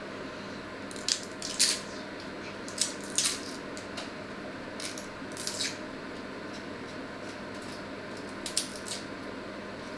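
Small kitchen knife cutting a vegetable in the hand over a steel pot: a few short sharp clicks and scrapes as the blade cuts through and pieces drop in, with a steady faint hum underneath.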